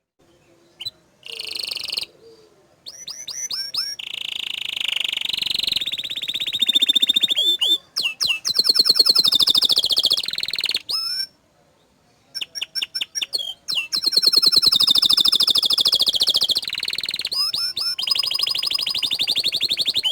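Domestic canary singing: fast trills of rapidly repeated notes and long rolling phrases, opening with a few short bursts and broken by a pause of about a second a little past halfway.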